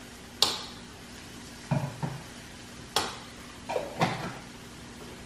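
A metal utensil knocking and scraping in a stainless steel saucepan of mashed potatoes: two sharp clinks and a few duller knocks, over a faint steady sizzle from a frying pan.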